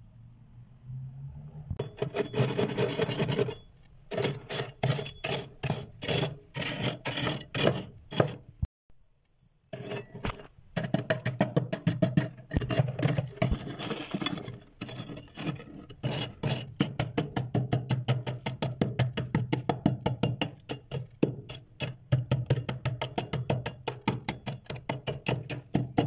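Thick freezer frost being scraped and chipped, rapid rough scraping strokes, about four or five a second for most of it, with a short pause about a third of the way in. A low steady hum runs underneath.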